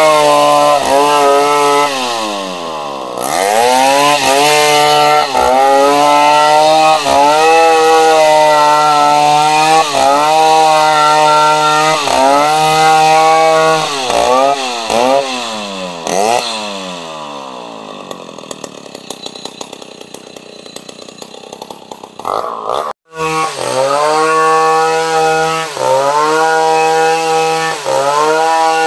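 Two-stroke chainsaw ripping lengthwise through a log, the engine pitch dipping and recovering again and again as the chain bogs under load and frees up. Past the middle the revs fall away and it runs quieter for several seconds, then the sound breaks off abruptly and comes back at full cutting revs.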